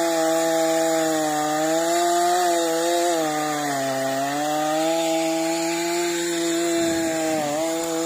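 Two-stroke chainsaw running at high revs while cutting a felled fir log. Its pitch sags for about a second around the middle as the chain bogs down in the cut, then picks back up.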